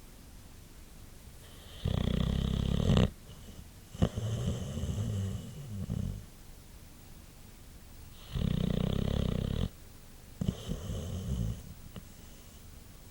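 Boxer dog snoring in its sleep: two rounds, each a loud snore lasting about a second followed by a softer, broken one.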